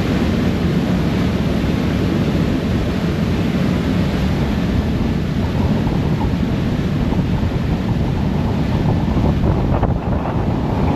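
Steady wind buffeting the microphone on the open deck of a moving ferry, over the rush of churned water from its wake.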